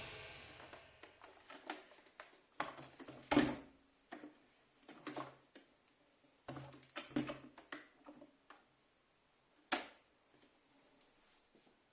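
Faint, scattered clicks and light knocks, a dozen or so at irregular intervals, with the tail of a music hit dying away at the start.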